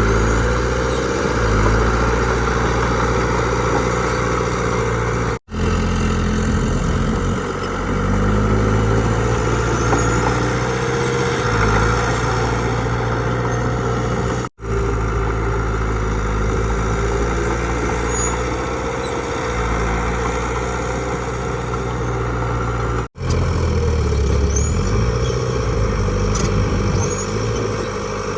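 Diesel engines of a bulldozer and dump truck running steadily at work, with slight rises and falls in pitch. The sound cuts out abruptly three times.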